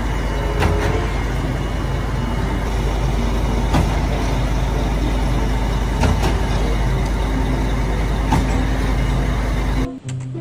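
Concrete mixer truck running with a steady low rumble, a few sharp knocks from the machinery standing out; it cuts off abruptly near the end.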